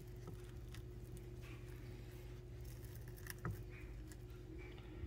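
Quiet room with a steady low hum, as a knife slices through a raw chicken breast on a wooden cutting board, making only faint sounds. There is a light tap about three and a half seconds in.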